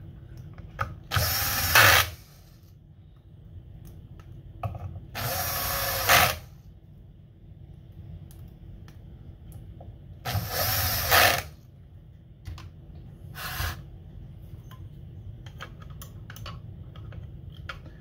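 Cordless drill/driver driving screws into the Xbox Series X's metal chassis: three runs of about a second each, a few seconds apart, and a short fourth, with small clicks of handling between.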